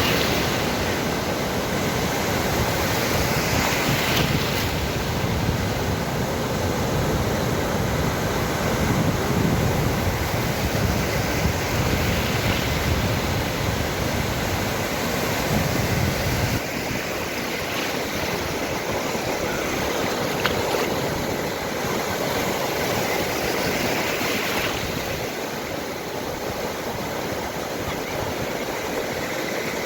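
Sea waves washing onto the shore in a continuous surf. The deep low rumble under it drops away about halfway through.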